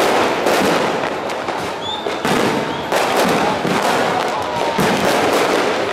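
Fireworks exploding overhead without a break: dense crackling with a string of sharp bangs, a fresh loud report every half second to a second.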